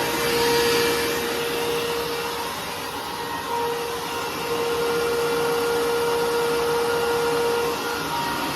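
Hoover WindTunnel Self-Propelled Ultra upright vacuum cleaner running loud: a steady rush of air with a steady motor whine. The whine dips briefly twice, about a third of the way in and again near the end.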